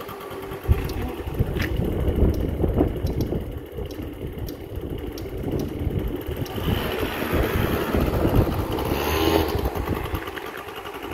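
Small motor scooter engine running, then picking up as the scooter pulls away, with a sharp click about a second in. The scooter is a junkyard machine running again after its carburetor was repaired.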